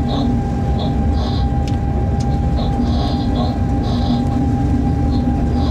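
Freight train running along the line, heard inside the locomotive cab: a steady low rumble with a constant hum, and faint brief high chirps coming and going every second or so.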